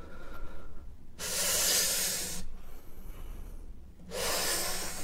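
A man breathing long, hissing puffs close to the microphone, two of them about three seconds apart, each about a second long, as he mimics smoking a cigarette.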